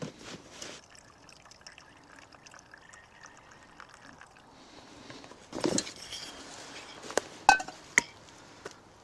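A thin trickle of liquid poured from a small bottle onto a camping stove, followed by a knock and several sharp metal clinks as a camping pot and lids are set down, the loudest clink about seven and a half seconds in.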